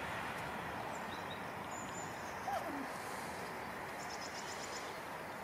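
Steady outdoor background noise, with a few faint high chirps and a brief high trill near the end.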